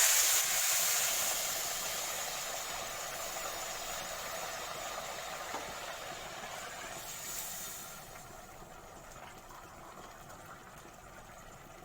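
Hot water from the kettle poured onto rice frying in ghee and oil in a hot pot: loud sizzling and hissing of steam at once, slowly dying down over the next several seconds.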